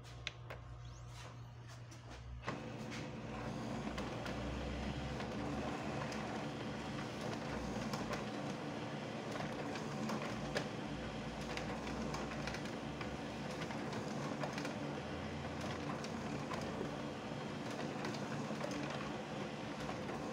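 Samsung Xpress M2876ND monochrome laser printer starting up about two and a half seconds in, then running steadily as it prints and feeds out a printer status report page, with a light click at the very start.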